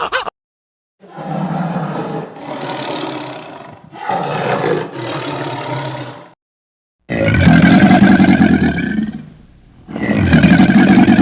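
An animal calling: rough, noisy calls in the first half, then two long, loud, pitched calls of about two seconds each.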